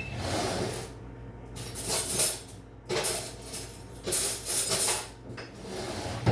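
Metal cutlery clinking and rattling in about five short jangly bursts, a fork knocking against other metal or against a mug.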